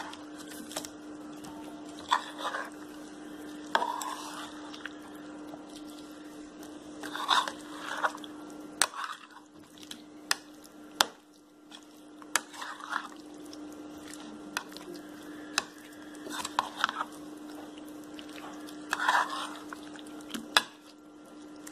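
Spoon stirring chicken pieces in a thick yogurt-and-spice marinade in a bowl: wet squelching strokes every couple of seconds, with several sharp clicks of the spoon against the bowl. A steady low hum runs underneath.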